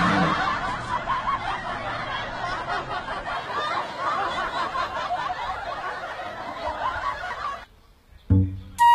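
A crowd of people laughing, many voices at once, that cuts off suddenly near the end.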